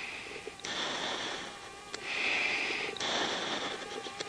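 A fighter pilot breathing through an oxygen-mask microphone: hissing breaths in and out alternate about once a second in a steady rhythm.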